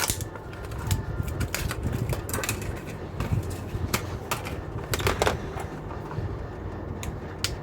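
Irregular clicks and short rustles of hands handling small laptop parts, the removed hard disk and the new SSD, over a low steady hum.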